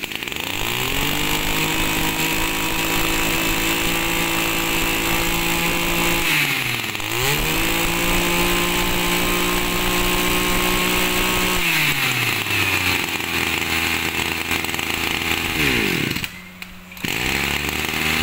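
Echo 253 backpack brush cutter's 25cc two-stroke engine revving up from idle about half a second in and holding at high revs, with a quick dip and climb when the throttle is eased midway. It then drops back to a low idle, with a brief break near the end.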